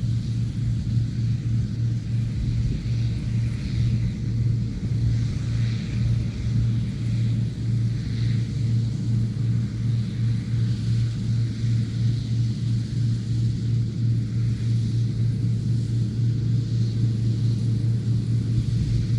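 Combine harvester running steadily while cutting soybeans: a constant low engine hum with no change in speed.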